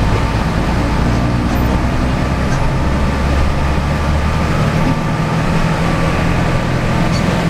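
Bus engine and road noise heard from inside the cab while driving: a steady low drone whose engine note shifts about halfway through.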